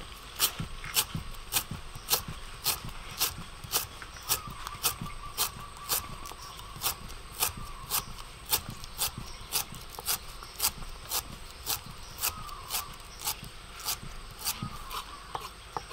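Chef's knife slicing a lemongrass stalk on a wooden cutting board: a steady run of sharp knife taps on the board, about two cuts a second.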